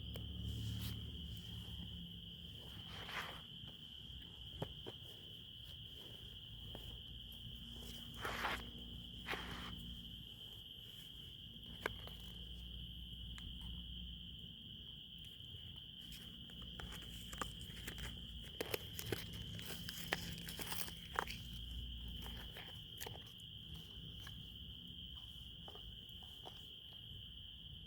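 A chorus of crickets keeps up a steady high chirring throughout. Scattered sharp clicks and crackles come over it, thickest about eight seconds in and again from about seventeen to twenty-two seconds.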